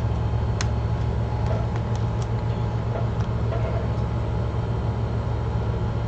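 Steady low hum with a few faint, light clicks.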